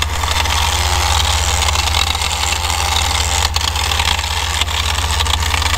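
Electric winch on a Jeep Wrangler TJ's front bumper running steadily under load, winding in synthetic rope, with a harsh grinding noise over a low pulsing hum. It doesn't sound healthy: the owner hopes it is just mud or rocks caught in the winch.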